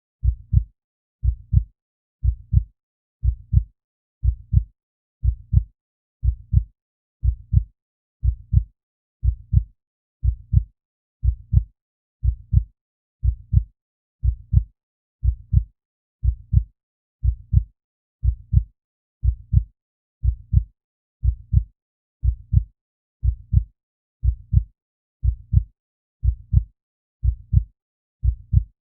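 Heartbeat sound effect: a steady, regular heartbeat of low double thumps (lub-dub), about one beat a second.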